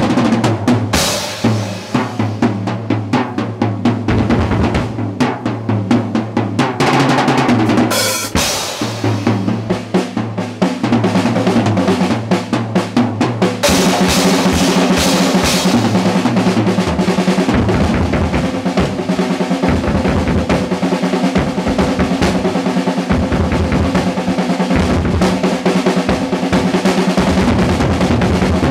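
Drum kit solo: rapid tom, snare and bass drum strokes with cymbal crashes about a second in and again around eight seconds. From about halfway the playing becomes a dense, unbroken flurry of drums and cymbals.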